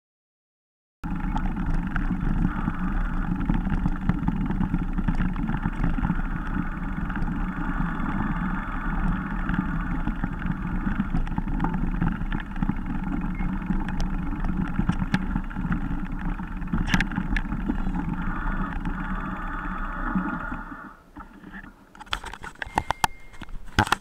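Riding noise from a camera carried along a rough dirt trail behind a mountain biker: a steady rush of wind on the microphone and rattling over the ground. It starts abruptly about a second in and drops away about 21 seconds in, followed by a few sharp clicks.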